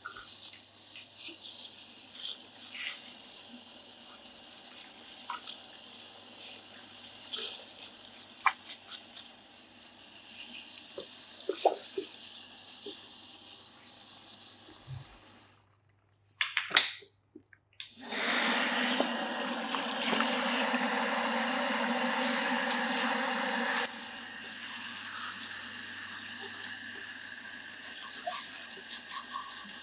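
Water from a handheld shampoo-basin sprayer running over wet hair into the basin, with fingers rubbing the scalp. After a short break past the middle, the flow is loudest for several seconds, then drops back to a softer hiss.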